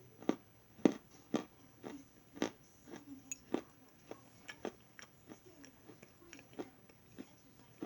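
Someone chewing crunchy food: a run of sharp crunches, a little under two a second, loudest at first and growing softer as the chewing goes on.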